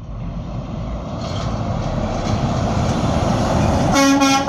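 A truck approaches, its road and engine noise growing steadily louder. About four seconds in, it sounds its horn in short blasts.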